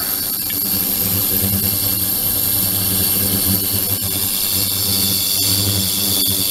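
Ultrasonic tank system running: a steady electrical buzzing hum with thin high whines above it, the low hum swelling and fading unevenly.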